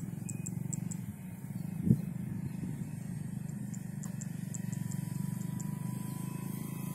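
Wind buffeting the microphone in open fields: a steady low rumble with one sharp gust thump about two seconds in. Small birds give two runs of short high chirps over it, and a faint thin whine comes in near the end.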